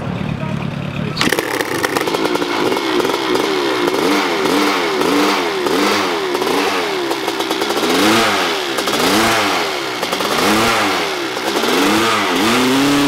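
Yamaha dirt bike engine revved in repeated throttle blips, its pitch rising and falling about once a second, then holding a steady higher rev near the end.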